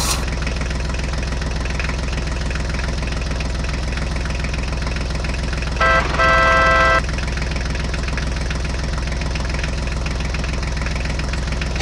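Tractor engine running steadily at idle. About six seconds in, a vehicle horn honks twice, a short toot and then a longer one of about a second.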